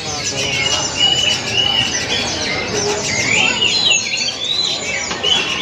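A dense chorus of many small caged songbirds chirping and twittering at once: short, high calls overlapping without pause, over a low murmur of voices from the crowd.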